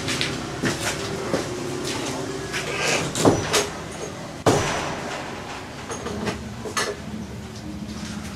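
A scattered series of knocks and clicks over a steady mechanical hum. The hum fades about halfway through, and the loudest knocks come a little past three seconds and about four and a half seconds in.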